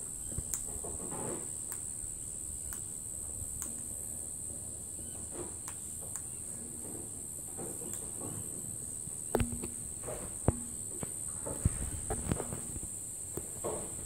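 A steady high-pitched insect chorus, with scattered small clicks and cracks of an Australian king parrot husking seeds on a leather glove; several sharper knocks come in the second half.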